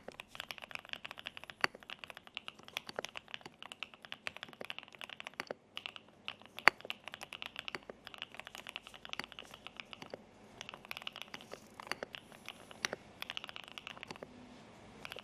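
Fast typing on an OE93 mechanical keyboard: a dense, irregular run of keystroke clicks with a few louder strokes standing out. The typing pauses briefly about five and a half seconds in, around ten seconds, and again near the end.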